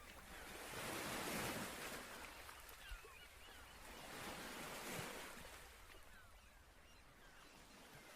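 Gentle ocean waves washing onto a beach, swelling about a second in and again around five seconds, then fading away near the end.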